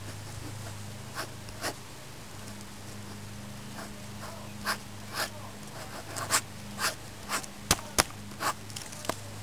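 A ballpoint pen scribbling on lined notebook paper: separate scratchy strokes, a couple at first, then a quicker run of strokes in the second half, the loudest near the end. A steady low hum sits underneath.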